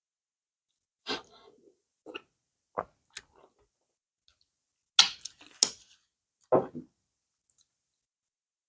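Close mouth sounds of someone eating pounded yam with banga soup: about eight short, wet smacks and clicks of chewing and lip-smacking, the loudest two around five seconds in.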